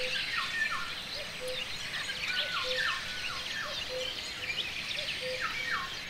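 Several songbirds singing at once: dense high chirps and trills, a clear whistled note that falls in pitch and repeats about every half second, and a low short note repeated steadily underneath.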